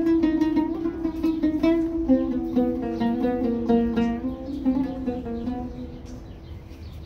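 Oud played with a plectrum, a run of quick plucked notes over a steady drone from a hand-pumped shruti box. The plucking thins out and grows quieter near the end.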